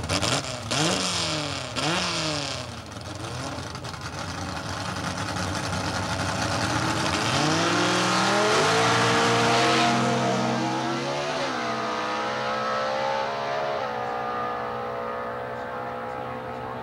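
Drag race car's engine blipped up and down at the starting line, then launching and accelerating hard down the strip, its pitch climbing and dropping back at two gear shifts a few seconds apart.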